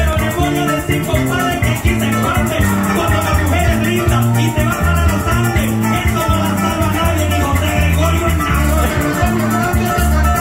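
Live Venezuelan llanero music: a llanero harp and a cuatro plucking a quick running accompaniment over an electric bass line, with maracas shaking a fast, even rhythm.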